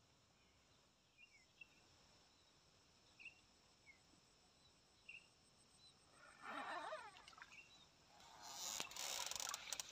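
A few faint chirps, then water running and pouring off a bamboo-framed square lift net as it is hauled up out of the water, starting about two-thirds of the way through and strongest in the last second and a half.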